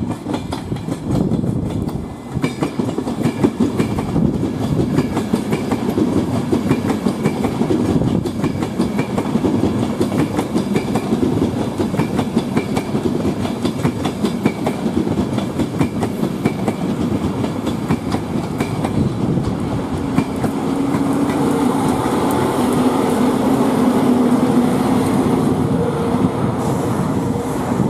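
Train running through a station, its wheels clattering over the rail joints in a continuous rapid rhythm. A steady low hum comes in over the last several seconds.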